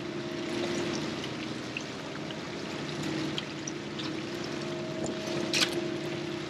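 Water pouring and splashing as fish thrash in the hauled-up set-net bag and are scooped with a dip net, over the steady hum of the boat's engine. A sharper splash comes about five and a half seconds in.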